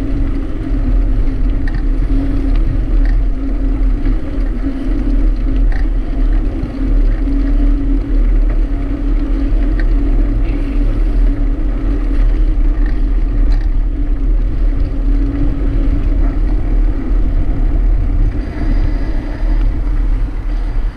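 Wind rushing over the microphone of a camera on a moving bicycle, a steady low rumble with an even hum under it from the ride along the asphalt trail.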